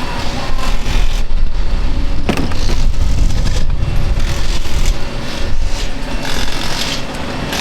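Race car engines running, a loud steady noise with a heavy low rumble and a sharp click about two seconds in.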